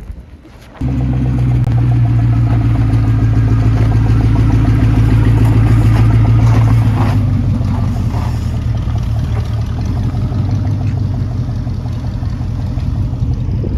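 Car engine running hard at fairly steady high revs, cutting in abruptly about a second in and easing off a little partway through.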